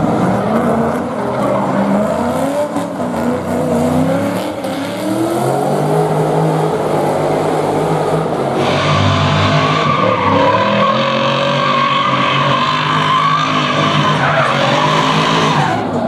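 Drift car's engine revving up and down hard while its spinning rear tyres slide and skid on tarmac. About halfway through, a loud, sustained high tyre squeal joins in and holds until it cuts off near the end.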